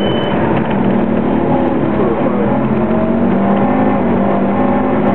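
Scania OmniCity double-decker bus's diesel engine and road noise heard from the upper deck while the bus drives, the engine note shifting in pitch as it accelerates.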